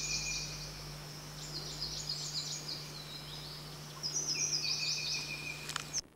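Birds chirping in the background: clusters of quick, high, falling chirps, with a thin steady high note under them at times and a low steady hum throughout. It all cuts off suddenly near the end.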